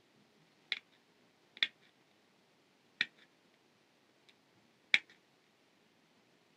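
Jewelry pliers clicking as they grip and bend a fine wire loop: four short, sharp clicks, spaced a second or more apart.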